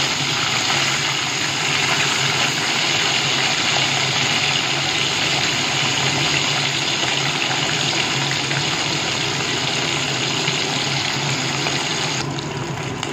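Vetki (barramundi) fish pieces frying in hot mustard oil in a kadai, a steady sizzle of bubbling oil over medium flame, easing a little near the end.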